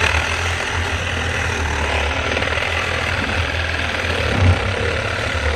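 Reciprocating saw running at full speed, its blade cutting through the metal end of a microwave oven magnetron: a steady, loud sawing with one brief louder peak about four and a half seconds in, as the cut nears completion.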